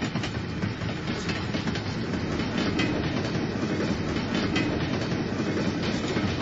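Train rolling steadily past, a continuous rumble with the quick clickety-clack of wheels over track joints.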